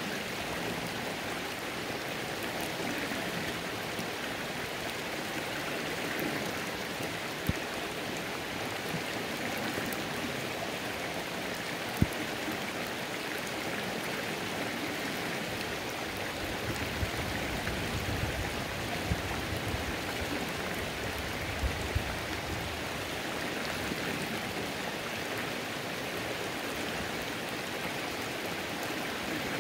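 Rain falling on a creek: a steady hiss of rain and running water, with a few sharp drop ticks scattered through, the loudest about twelve seconds in.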